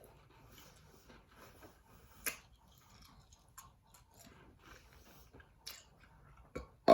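Quiet mouth sounds of chewing small cinnamon Red Hots candies, with scattered small clicks and crunches, one sharper about two seconds in. A burp begins right at the end.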